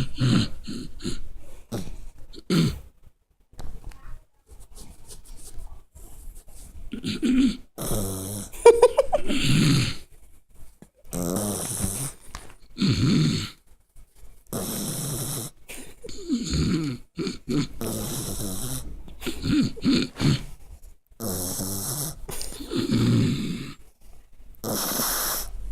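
Puppy snoring in a long run of noisy breaths, one every second or two, with a pause of a few seconds near the start.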